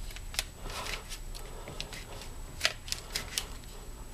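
Hands handling fuel line and tools on a newspaper-covered bench: light paper rustling with a few small, sharp clicks.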